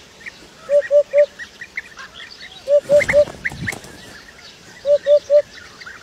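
A hoopoe singing its low 'oop-oop-oop' song: three phrases of three quick notes each, about two seconds apart. Faint chirps of other birds sound behind it.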